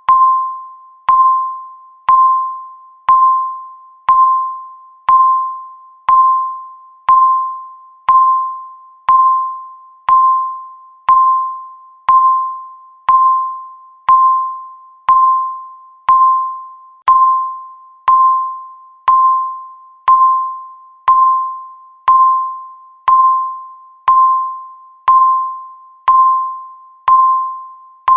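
Countdown timer beep sounding once every second: a short, high electronic beep that starts sharply and fades away before the next one, in a steady regular rhythm.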